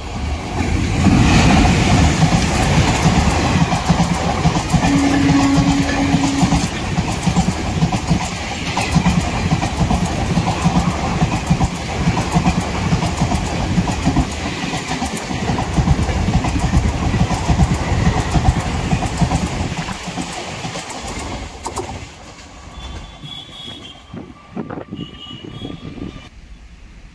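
An Indian Railways WAP-4 electric locomotive and its express passenger coaches passing at speed, the wheels clattering over the rails. The noise builds in the first couple of seconds, holds, and fades after about twenty seconds as the train draws away, with a brief steady low tone about five seconds in.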